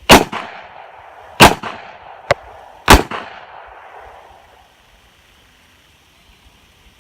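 Smith & Wesson Model 66-8 revolver firing three loud shots about a second and a half apart, each with a ringing echo tail. A fainter sharp crack falls between the second and third shots.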